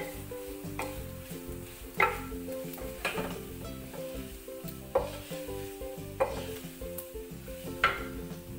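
Wooden spatula stirring and scraping beef fry in a pan over a steady sizzle, as beef pieces and sliced onions fry dry in oil. Sharp scrapes come irregularly, about once a second.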